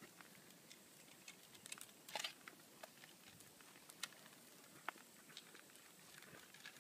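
Near silence: a faint steady hiss with scattered light clicks and ticks, the loudest a short cluster about two seconds in.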